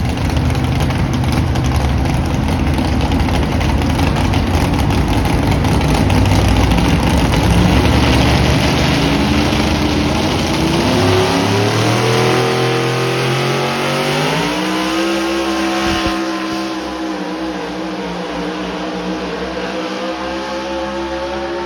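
Pro modified four-wheel-drive pulling truck, a Ford, at full throttle pulling the sled: a loud, rough engine at first, then from about nine seconds in the engine pitch climbs over several seconds and holds at a high scream.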